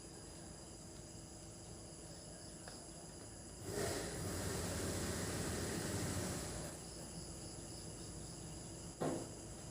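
Night insects, crickets, chirring steadily. About four seconds in, a rush of noise swells for some three seconds and fades, and near the end there is a single short knock.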